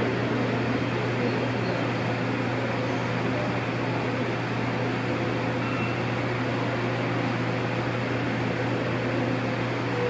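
Steady mechanical hum with an even hiss over it, unchanging throughout.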